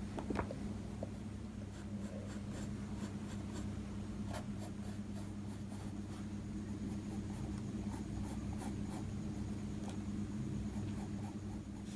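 Pencil sketching on paper: quick, light scratching strokes repeated over and over, with a steady low hum underneath.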